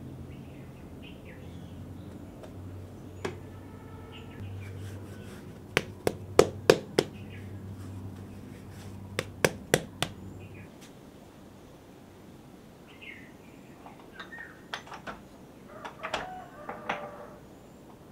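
Small birds chirping in short calls, with two quick runs of about four sharp knocks in the middle, the loudest sounds here. A low steady hum stops a little past halfway.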